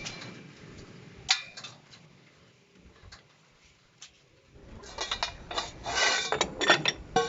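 Metal hand tools clinking against metal: a sharp click about a second in, then a run of ringing metallic clinks and clatter in the second half.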